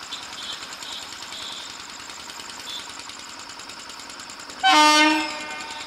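A short, loud blast of a WAP-4 electric locomotive's air horn near the end, a single pitched honk lasting under a second, over a steady faint background.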